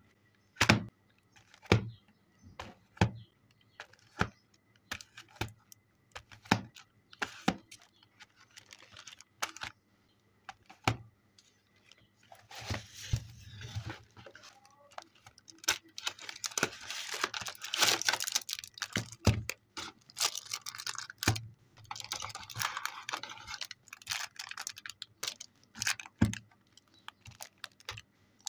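Unboxing of modeling clay by hand on a tabletop: a string of sharp taps and knocks as a box and packs are handled and set down, then, from about halfway through, several stretches of plastic wrapping crinkling.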